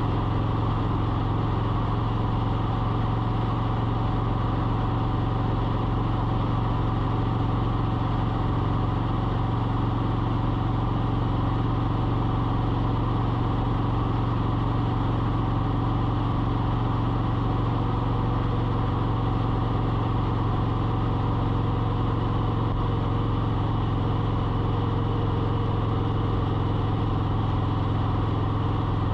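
A steady mechanical hum from a running motor or engine, with a strong low drone and several higher steady tones, unchanging throughout.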